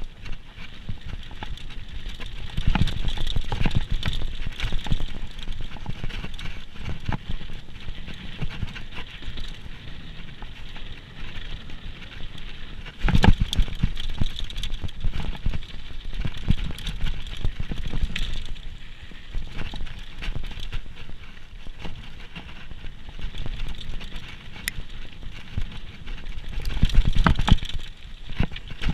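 Downhill mountain bike running over a rough bike-park trail: tyres on dirt and the bike rattling with many small knocks. Heavier jolts come about halfway through and near the end.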